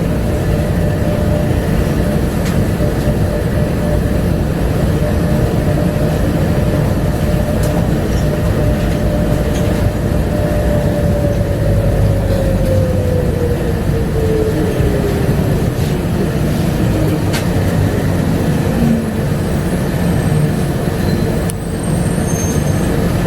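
Bombardier APM100 rubber-tyred people-mover train running with a steady low rumble. A motor whine holds level, then falls steadily in pitch from about ten seconds in as the train slows.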